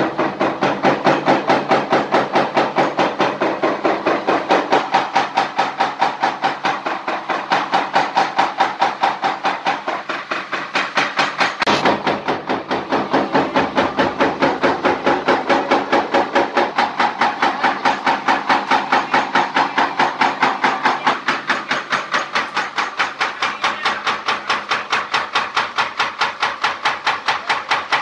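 Small belt-driven biomass briquette press running under load, its ram knocking in a rapid, even rhythm of about three strokes a second as it compresses sawdust into briquettes.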